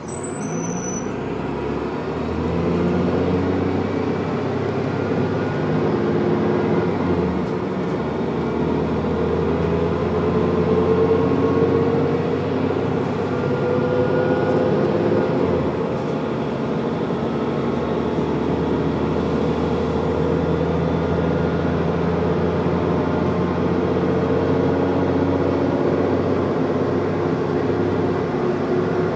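Diesel engine of a single-deck bus working hard uphill, heard from inside the passenger saloon. The engine note climbs slowly, with a brief dip about seven seconds in.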